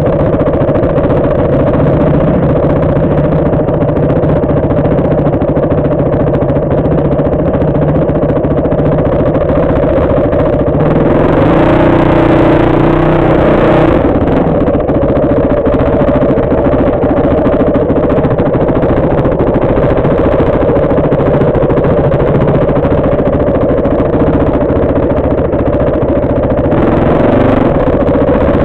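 Dirt bike engine running close to the microphone, ticking over steadily, then opened up harder with a rise in pitch and loudness for a few seconds about eleven seconds in as the bike sets off up the rocky trail, before settling back to lower revs.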